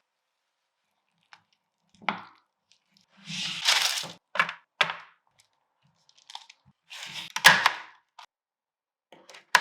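Hardened peanut brittle being snapped into pieces: a series of irregular sharp cracks and crunches with short silences between them, one longer crunch about three seconds in and the sharpest crack near the end.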